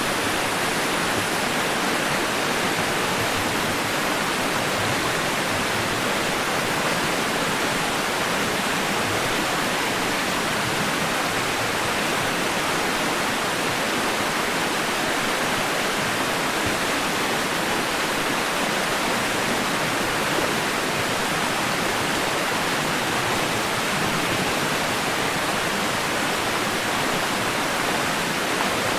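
Steady white noise for lulling a baby to sleep: an even, unchanging hiss, strongest in the middle and upper range, with almost no low rumble.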